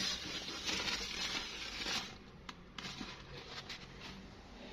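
Rustling, rubbing strokes of a surface being wiped for about two seconds, then quieter with a few light clicks and taps.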